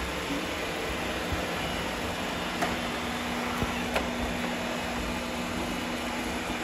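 iRobot Roomba and Shark robot vacuum cleaners running on a hard floor: a steady noise of brushes and suction motors. A steady hum joins about two and a half seconds in, and a few sharp clicks come near the middle.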